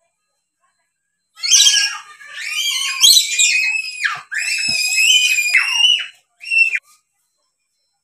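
Dusky lory calling: a run of loud, shrill, harsh screeches with sliding pitch, starting about a second in and stopping shortly before the end.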